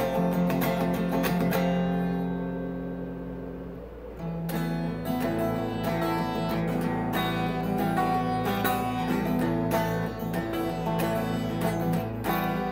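Strummed guitar music. The strumming lets up and a chord fades about two to four seconds in, then the strumming picks up again.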